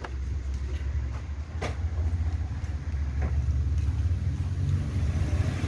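Steady low engine rumble, growing slightly louder, with a few faint clicks.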